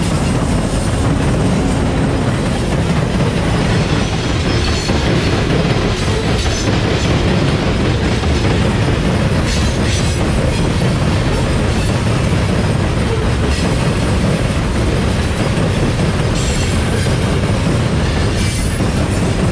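A loaded coal freight train passing close by: a CSX diesel locomotive going past at the start, then loaded coal cars with a loud, steady rumble of steel wheels on rail and occasional clacks over rail joints.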